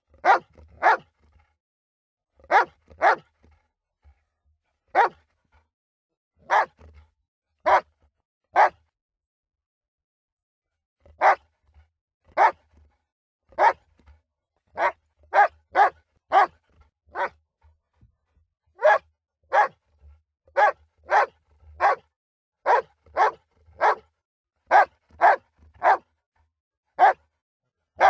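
A dog barking in short, sharp single barks, some in quick pairs. They come a second or two apart at first, break off for about two and a half seconds a third of the way in, then come faster, one or two a second, through the second half.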